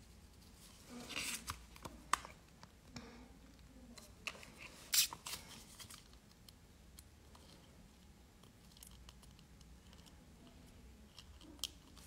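Faint clicks and rustles of metal tweezers and a thin plastic sticker sheet as tiny adhesive nail stickers are peeled off and set on nail tips. A few sharp clicks stand out, the loudest about five seconds in.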